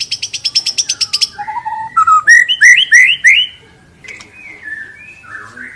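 White-rumped shama (murai batu) singing: a fast rattling trill of about eight notes a second, then a run of loud rising whistled notes, and softer sliding whistles near the end.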